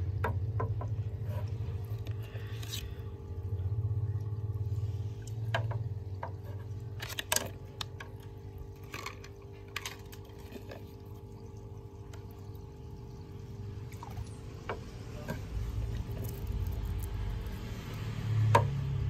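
Artificial aquarium plants with stone bases being set into a glass aquarium by hand: scattered clicks and knocks of the bases against the glass, with some water sloshing, over a steady low hum.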